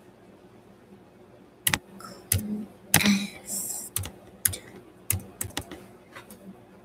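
Typing on a computer keyboard: irregular key clicks with short pauses, starting about two seconds in.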